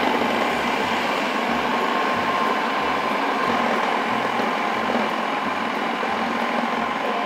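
Electric food processor running steadily at speed, its blade chopping butter into flour and sugar to make shortbread dough; a continuous motor whir with a faint steady whine.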